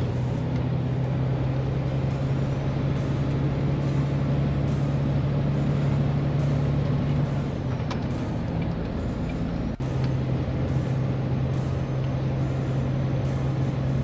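Diesel truck engine running steadily, a low drone heard from inside the cab while driving, with a momentary drop about ten seconds in.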